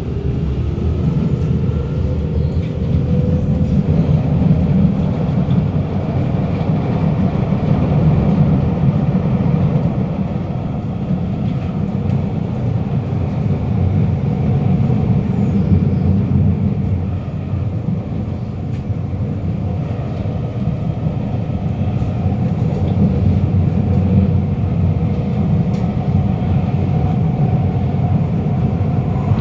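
Inside a Kawasaki Nippon Sharyo C751B metro car pulling out of a station and running at speed: a steady, loud rumble of wheels on rail. Over it is the traction motor noise, which sounds echoey in this car.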